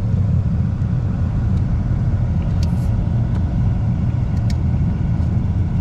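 Car interior rumble: the engine and tyres make a steady low drone as the car rolls slowly along, with a few faint clicks around the middle.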